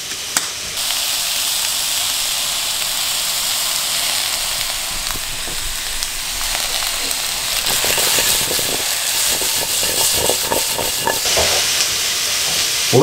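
Cubed parsnip and zucchini sizzling as they sauté in a frying pan, a steady hiss that gets louder about a second in. Light knocks and scrapes of stirring in the pan come through in the second half.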